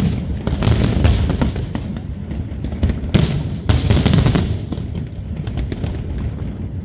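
Aerial fireworks shells bursting in quick succession, a rapid string of bangs and crackling. The heaviest volley comes about three to four and a half seconds in, then it thins out toward the end.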